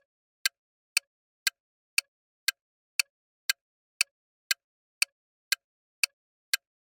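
Countdown timer sound effect ticking evenly, a sharp tick twice a second with silence between, marking the seconds left to answer a quiz question.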